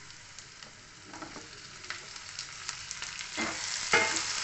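Chopped onions and freshly added tomato pieces sizzling in oil in a non-stick kadhai, faint at first. About three and a half seconds in, a wooden spatula starts stirring, scraping across the pan twice, and the sizzling grows louder.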